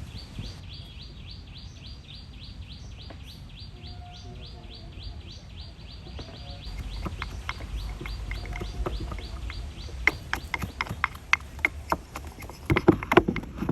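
A bird calling in a fast, even run of short high chirps, about six a second, for some six seconds. From about ten seconds in, a run of sharp clicks and knocks, loudest near the end.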